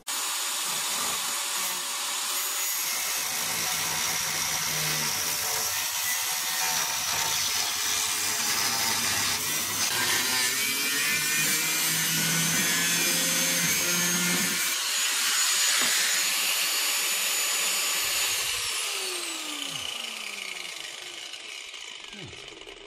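Small angle grinder with a thin cutting disc slicing through the steel chassis rail, a steady high whine and hiss. Near the end it is switched off and the disc spins down, its pitch falling away.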